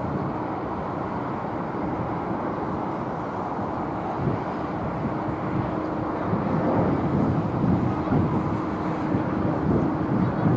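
Airbus A319 jet engines on final approach and flare: a steady rushing jet noise with a faint held tone, growing louder in the second half as the airliner comes close over the runway.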